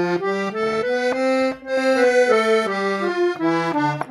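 Small piano accordion playing the C major scale note by note on its treble keys, climbing to the top C about two seconds in and then stepping back down.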